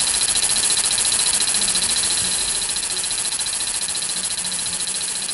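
Male cicada giving its mating call, a steady high-pitched buzz made of very rapid pulses, produced by buckling the ribbed tymbal membranes on its abdomen.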